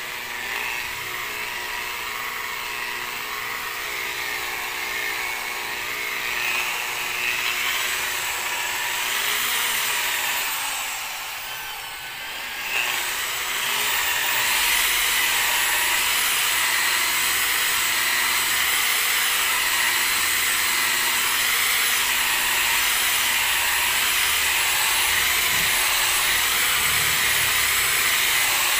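Electric rotary polisher running with its foam pad pressed on a truck's painted body panel, buffing with rubbing compound. Its motor whine wavers in pitch through the first half, dips about twelve seconds in, then runs louder and steady.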